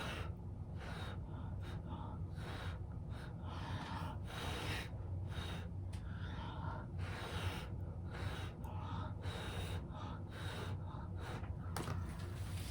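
A person blowing on wet acrylic paint by mouth to push it across the canvas. The blows come as a series of short, breathy puffs about a second apart, over a steady low hum.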